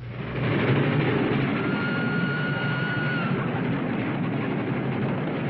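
Train running, with a steady rushing noise, and its whistle blowing one steady note for about a second and a half that drops off as it stops.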